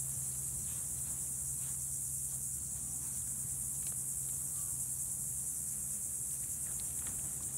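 Steady high-pitched drone of an insect chorus, with a low steady hum underneath and a few faint ticks.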